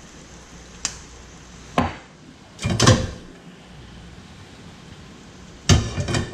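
Kitchen clatter at the stove: a light tap about a second in, a sharper knock near two seconds, a longer rattling clatter around three seconds, and another clatter near the end.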